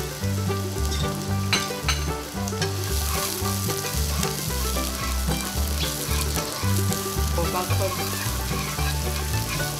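Sliced onion sizzling in hot oil in a nonstick frying pan while being stirred with chopsticks. The sizzle grows louder about three seconds in, with a couple of sharp clicks shortly before.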